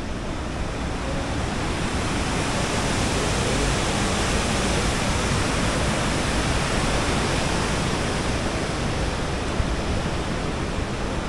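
Steady rushing noise spread evenly from deep to high, growing a little louder over the first few seconds and easing slightly near the end.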